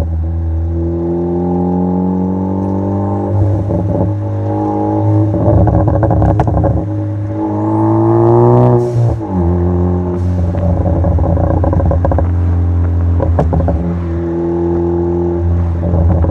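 Ford Focus ST's turbocharged EcoBoost four-cylinder, breathing through a Cobb exhaust and catless downpipe, pulling with revs climbing. The revs drop sharply about nine seconds in and then hold steady. Sharp exhaust crackles and pops from the stratified crackle tune come several times, around four seconds in, six, nine and near the end.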